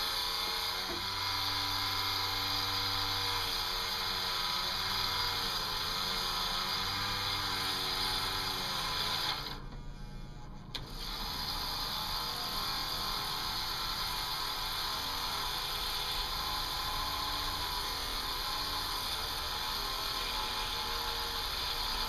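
Small brushed electric motor from a 1960s palm massager running steadily while fine wire is fed into it and chewed up in its fan. About halfway through, the sound drops sharply for a second or so, then the motor picks up again.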